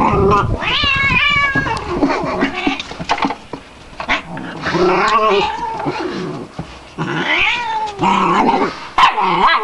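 A domestic cat yowling in long, wavering calls, about three of them, while play-fighting with a dog.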